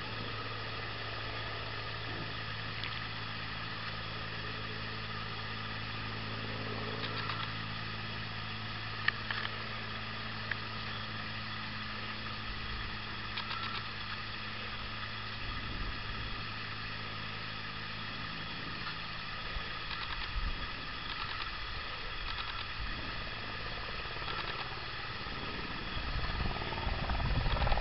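Three-cylinder Verner radial engine of a Minimax ultralight aircraft, heard from the ground as a steady distant drone. A louder low rumble comes up in the last couple of seconds.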